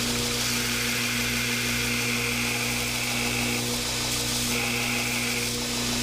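2x72 belt grinder running with a steady motor hum while steel is ground on the belt, the grinding noise dropping out for about a second midway as the blade is lifted off and then pressed back on.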